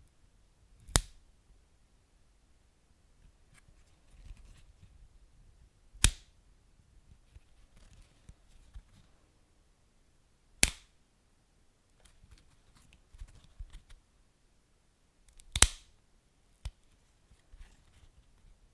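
Wood fire burning with soft crackling, broken by four sharp, loud pops about five seconds apart and a smaller pop near the end.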